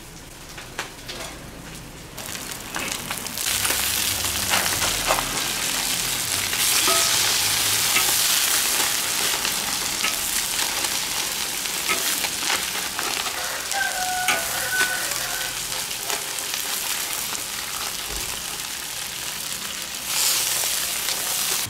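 Small river fish frying in hot oil in an iron wok: a steady sizzle that grows louder about two seconds in, with the clicks and scrapes of a metal spatula against the wok as the fish are turned.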